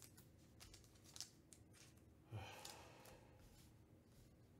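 Near silence: a few faint light clicks, then about halfway through a single soft rush of breath-like noise that starts suddenly and fades over about a second.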